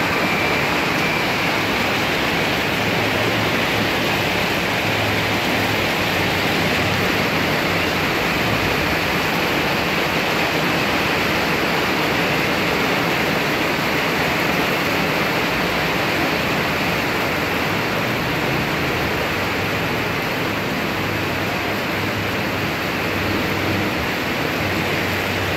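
Heavy thunderstorm rain pouring down in a steady, even hiss.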